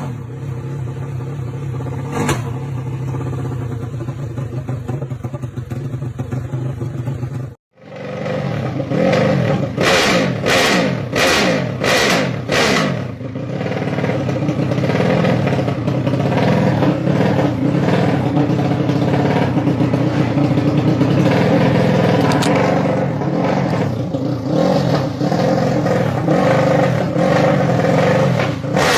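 Honda Sonic drag bike with a 500cc engine and Herex open exhaust running at a steady idle, then after a sudden cut being revved in a run of quick throttle blips and held at higher revs.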